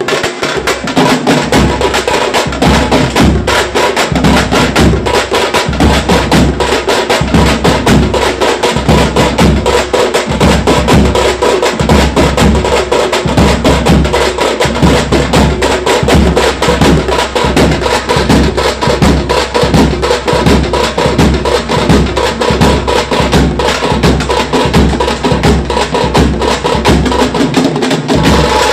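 Tamate frame drums beaten with sticks in a loud, fast, driving rhythm, over a steady deep beat.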